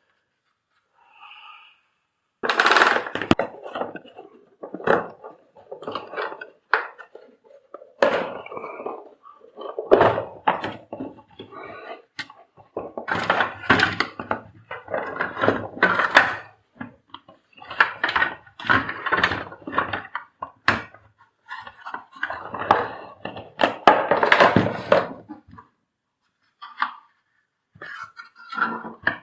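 Irregular knocking, clattering and scraping of hard plastic parts and tools being handled while a vacuum cleaner's casing and cord-reel mechanism are worked on, with short pauses between bouts.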